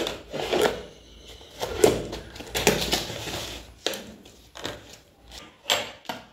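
Plastic lunch containers being handled on a stone countertop, their lids pressed shut: a series of irregular clicks and knocks with light rustling, the sharpest about two seconds in and again near the end.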